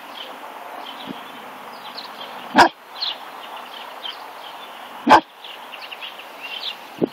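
Fila Brasileiro puppy giving two short, sharp barks about two and a half seconds apart: wary barks of distrust at something strange.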